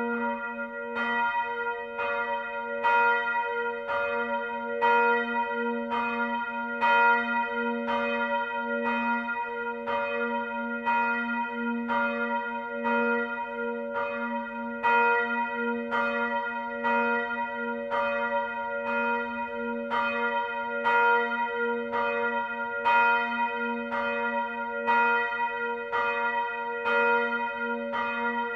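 Church bells ringing, struck about twice a second, with a louder stroke about every two seconds. A deep hum rings on steadily underneath.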